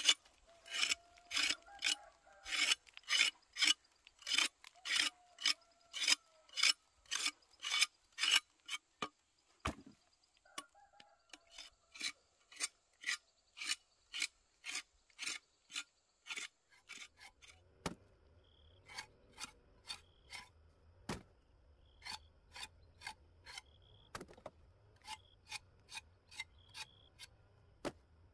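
Knife blade scraping the skin off cassava roots in quick rasping strokes, about two a second, loud at first and growing fainter and more spaced out in the second half.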